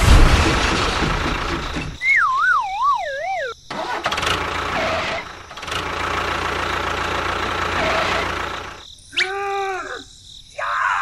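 Steady engine-like running noise, broken about two seconds in by a wobbling whistle that slides downward for over a second, with a short pitched call near the end.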